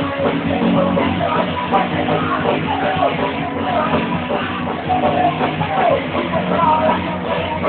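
A band playing loud rock music, with a voice singing over a steady bass line.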